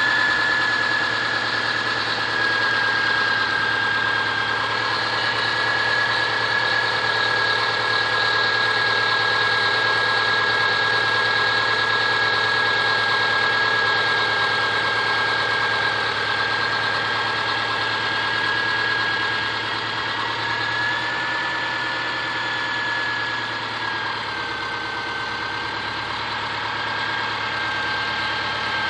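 Subaru Forester SG5's EJ25 2.5-litre flat-four engine idling steadily with a knock, the fault the owner is showing, and a steady high-pitched whine over it.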